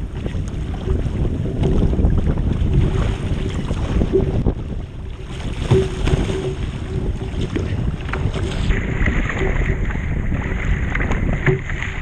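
Wind buffeting the microphone over water splashing and slapping against a surf ski's hull as it is paddled through ocean chop, with irregular knocks.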